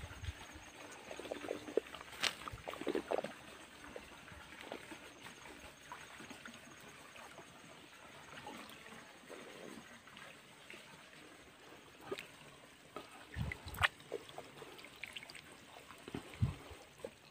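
Faint trickle of water in a shallow fishpond, with scattered light clicks and rustles and a few soft low thumps.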